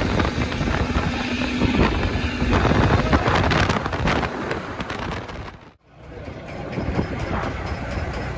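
A fishing trawler's engine rumbling steadily, with wind on the microphone and the clatter and slap of fish being handled in a heap on the deck, busiest in the middle. The sound dips out for a moment about six seconds in, then the engine and wind come back.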